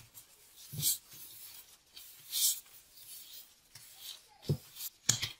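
A plastic-gloved hand rubbing oil over a ball of bread dough in a ceramic bowl: three short, soft rubbing swishes spaced about a second or two apart, with a few dull knocks of hand and dough against the bowl.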